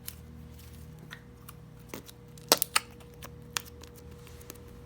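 Thick slime being pressed and handled, giving scattered sharp clicks and pops, with a quick cluster of the loudest about two and a half seconds in.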